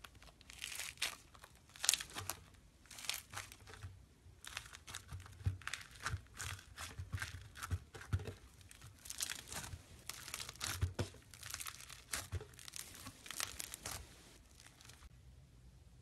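Foam slime (floam) being squeezed and worked by hand, giving clusters of crisp crackles and crunches as the foam beads pop. The crackling stops near the end.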